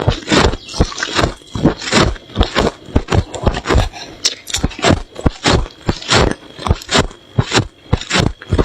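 Thick freezer frost crunching in a fast, even run of crisp strokes, about three a second.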